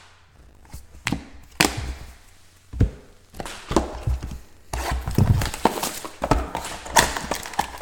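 Trading cards and their box packaging handled on a table: scattered taps and knocks, then a run of crinkling from about five seconds in as packaging is opened.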